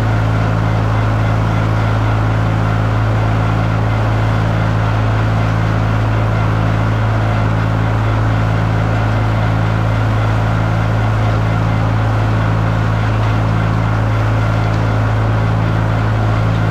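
John Deere 820 tractor engine running steadily at a constant speed, heard loud and close, likely while driving the hay tedder. A slightly higher tone in it pulses about once a second.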